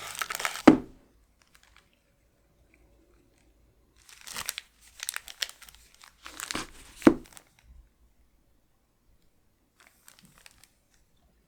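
Packaging crinkling and tearing as it is handled: a burst of rustling and sharp crackles at the start, a longer stretch from about four to nearly eight seconds in, and a faint rustle near the end.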